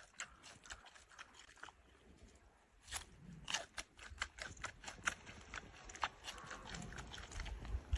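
Giant panda chewing raw pumpkin: irregular sharp crunches and bites, sparse and faint for a moment, then thicker and louder from about three seconds in.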